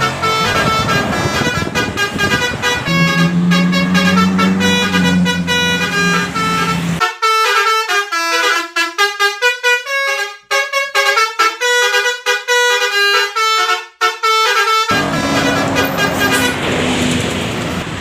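Multi-tone 'telolet' bus horn playing quick melodies of short stepped notes, with street and engine noise under the first part and the end. In the middle it plays a fast, clean run of rapidly changing notes.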